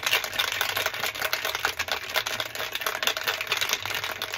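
Ice rattling inside a metal cocktail shaker shaken hard by hand, a dense, fast clatter of clicks, to chill the drink until the shaker is ice cold.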